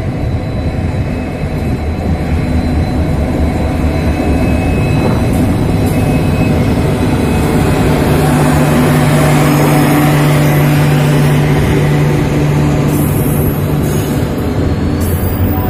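WDP4B diesel locomotive, with its EMD 16-cylinder two-stroke engine, passing close by at speed, followed by the steady noise of its LHB passenger coaches' wheels running over the rails.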